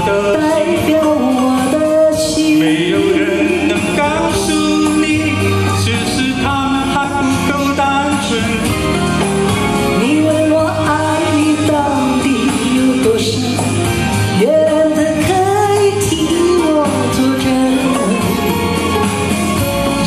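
Karaoke singing over a pop backing track through the hall's speakers: a woman sings into a handheld microphone, with a man's voice joining in.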